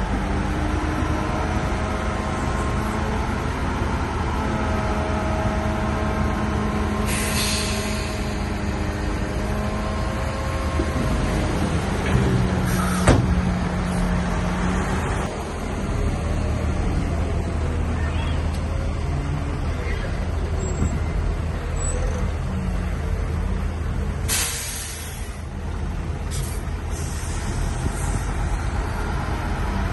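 Heavy diesel earthmoving machinery running steadily. Three short bursts of loud hissing break through the engine sound, the middle one with a sharp knock.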